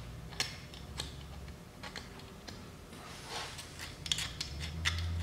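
Scattered light clicks and short scraping and rubbing as a razor blade and rag clean old gasket material off the engine's cylinder gasket surface, over a low steady hum that grows louder near the end.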